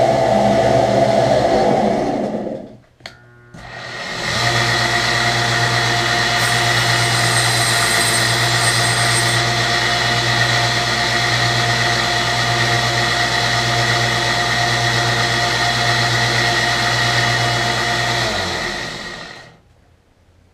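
A workshop machine's electric motor runs steadily. It shuts off about two and a half seconds in, starts again about a second and a half later, then winds down with a falling hum a couple of seconds before the end.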